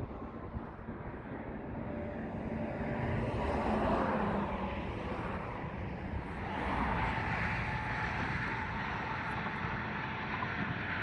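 Motor vehicle noise: a steady rushing rumble that swells twice, about four and seven seconds in.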